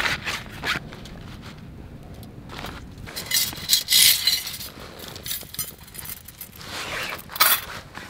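Thin metal parts of a small folding stainless-steel fire pit clinking and scraping as it is unpacked and its frame is handled, with rustling of dry leaves underneath. The loudest clatter comes about halfway through and again near the end.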